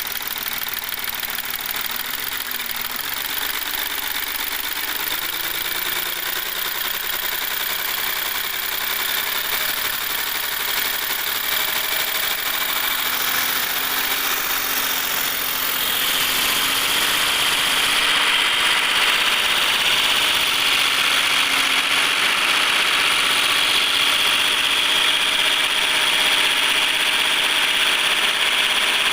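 Audi Q7 3.0 TDI's V6 diesel engine running steadily. A high hiss grows louder about halfway through and then holds. The owner is chasing a strange noise that shows up around 2000 rpm.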